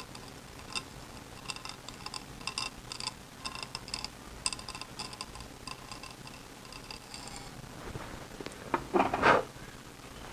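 A tiny strip of sandpaper rubbed by hand along the edges of a small cut part clamped in a bench vise: a string of short, irregular, high scratchy strokes, with a louder single scuff near the end.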